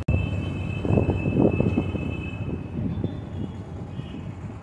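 Wind buffeting the microphone and road noise while riding on a two-wheeler, with a thin steady high tone through the first half. The rumble eases off toward the end.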